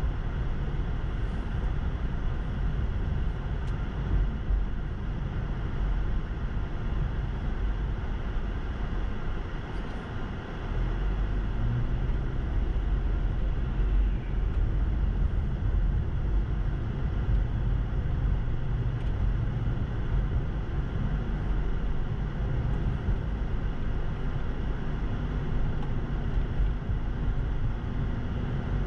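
Car driving on a snow-packed road, heard from inside: a steady low rumble of engine and tyres. It eases briefly about ten seconds in as the car slows, then builds again with a faint rising engine tone as the car speeds up.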